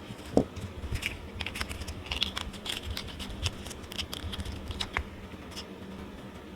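Cured resin cat paw pieces being demolded from a silicone mold: a run of small irregular clicks, crackles and taps as the mold is flexed and peeled away, opening with a sharper knock about half a second in.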